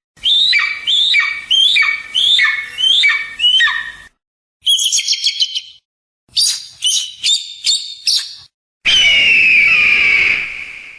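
Eagle calls from several recordings, one after another with short silent gaps. First comes a run of about seven loud calls, each sliding down in pitch. Then come two spells of rapid, high, chattering notes, and near the end a long harsh scream.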